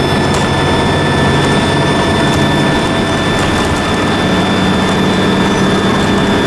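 Dennis Trident II double-decker bus engine running, with a steady high-pitched turbocharger whistle over its low rumble.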